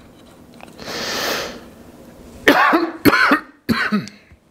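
A man coughing three times in the second half, after a breathy rush about a second in; he puts the cough down to sawdust.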